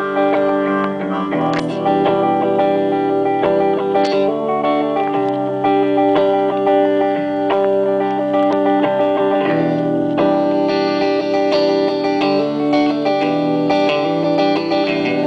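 Live guitar and harmonica duo playing, with the guitar strummed under long held harmonica notes.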